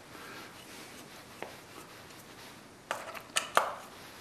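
Deck screw being backed out of a pine 2x4 block with a hand screwdriver: quiet turning and handling, then a quick cluster of sharp clicks about three seconds in.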